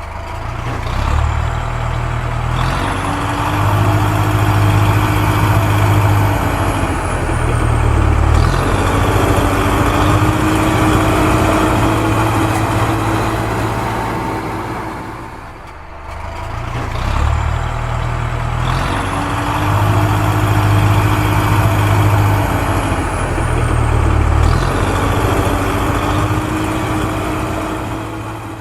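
Heavy vehicle engine sound, a low steady rumble with long hissing rises and falls high above it. The same stretch repeats after about 16 seconds, like a looped sound-effect track.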